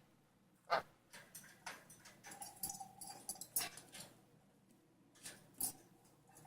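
Pet sun conure making small, quiet sounds: scattered faint clicks and taps with one short, soft, even-pitched squeak a little over two seconds in.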